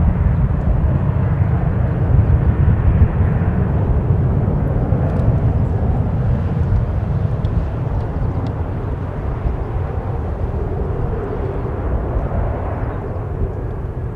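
Boeing 787-8 taxiing with its jet engines at low power, a steady loud rumble, mixed with heavy wind buffeting on the microphone from a strong gusty wind.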